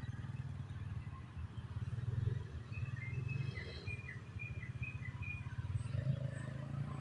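Steady low fluttering rumble throughout, with a quick run of short, high bird chirps about three seconds in.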